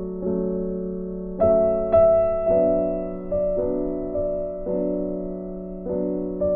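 Background music: slow electric piano chords, struck every half second to a second and left to ring.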